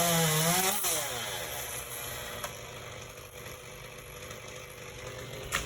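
Chainsaw running high at the start, then the throttle is let off about a second in and its pitch falls away to a steady idle. A sharp knock near the end.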